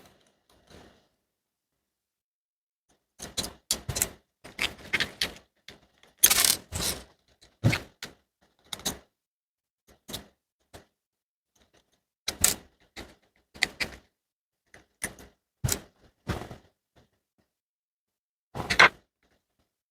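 Irregular clicks and knocks of a hair trimmer's plastic housing and metal parts being handled and taken apart, starting about three seconds in, with short silent gaps between.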